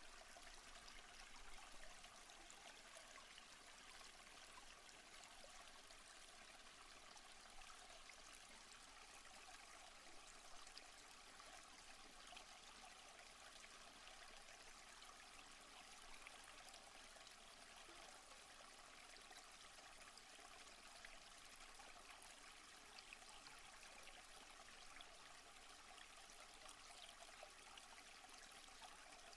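Faint, steady rush of stream water flowing below a waterfall.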